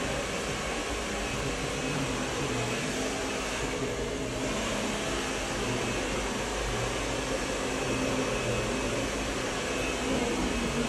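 Steady rushing air of an electric blower running without a break.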